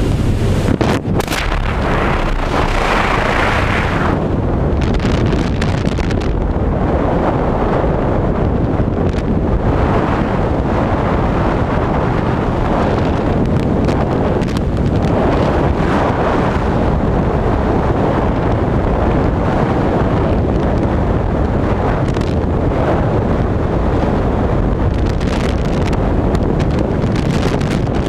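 Loud, steady wind noise on a skydiver's camera microphone in freefall. In the first few seconds the sound of the open aircraft door gives way to it as the jumpers exit.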